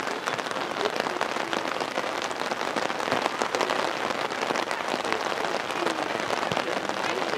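Steady rain pattering close to the microphone: a dense hiss of many small drop ticks.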